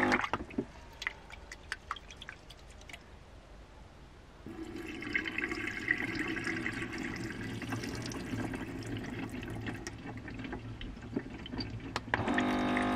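Rice being rinsed in a pot: after a few seconds of faint clicks and swishes, the cloudy rinse water is poured out into a stainless steel sink, splashing steadily for about seven seconds. An electric water-jug dispenser pump whines briefly at the very start and starts up again near the end.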